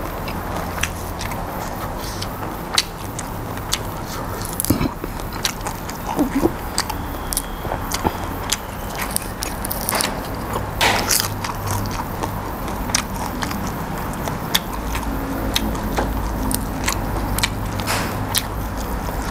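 Close-miked chewing and biting of food, with crisp fresh greens eaten alongside: irregular wet clicks and crunches from the mouth, over a steady low hum.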